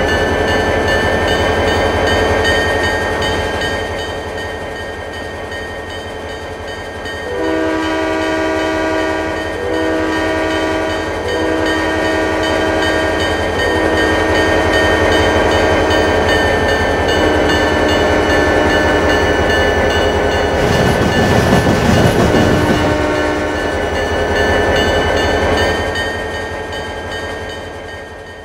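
Train horn sounding a chord of several notes at once in about six blasts, mostly long ones, starting about a quarter of the way in. Under it runs a steady train rumble and hum. A loud rushing noise rises and falls about three-quarters of the way through.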